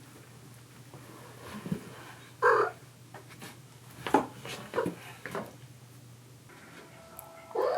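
A kitten meowing, loudly about two and a half seconds in and again near the end, with a few sharp knocks in between.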